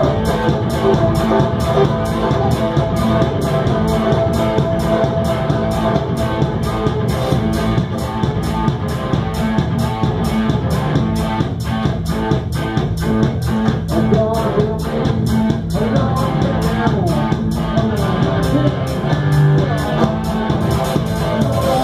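Live band music played loud in a pub, with a banjo being picked over drums keeping a fast, steady beat.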